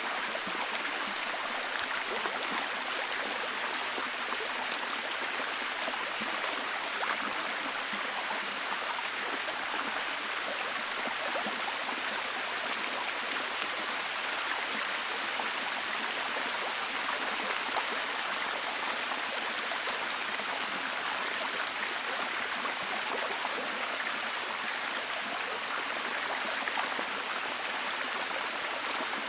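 Steady rain falling: an even hiss dotted with many small, sharp drop impacts, with no change in strength.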